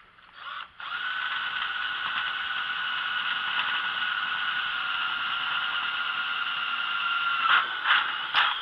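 Electric drill running at a steady high whine as it bores a hole through aluminum flashing and the grill's sheet metal for a pop rivet, ending with a few sharp knocks as it stops.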